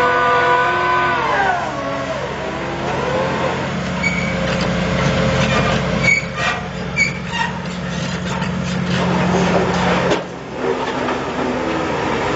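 Excavator-mounted wick drain rig's engine and hydraulic drive running. About a second in, its whine drops in pitch and settles into a steady low hum, with a few metallic clinks in the middle and a short dip just after ten seconds.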